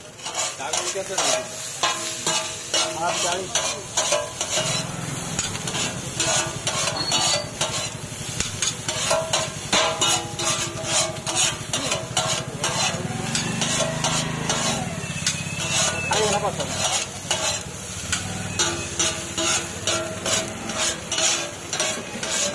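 Two metal spatulas clattering and scraping rapidly on a large flat iron griddle as chow mein noodles are tossed and chopped, over the sizzle of frying.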